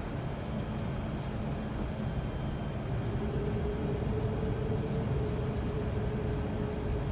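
Airbus A380 cabin noise heard from a window seat while taxiing: a steady low rumble of the engines and airframe, with a faint steady tone that comes in about three seconds in.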